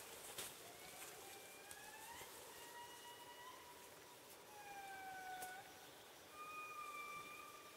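Faint indri song: a series of long, wailing notes, each held about a second, some gliding up in pitch and others sliding down.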